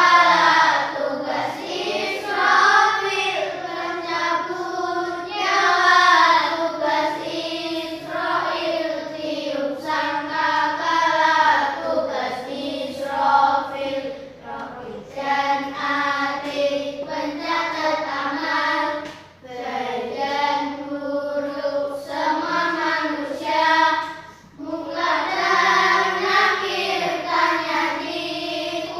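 A class of children singing together in unison, an Indonesian memorisation song about the angels and their duties, with short pauses between lines.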